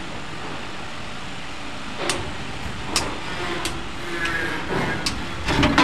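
Pliers working copper electrical wire, snapping with about five sharp clicks as the insulation is stripped and the wires twisted, over a steady background hum.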